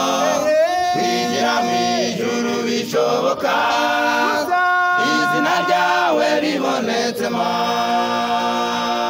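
A choir singing, several voices together holding long notes in phrases of a few seconds each.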